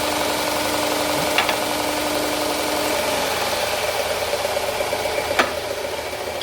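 2x72 belt grinder running steadily, with a steady hum throughout. A higher tone stops about three seconds in, and there are two sharp clicks, one early and one a little past five seconds.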